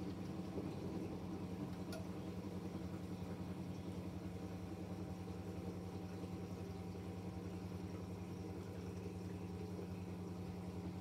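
Miele Novotronic W715 front-loading washing machine during a rinse, its drum at rest: a steady low hum with a fine, even pulsing, and water sounds from inside the machine.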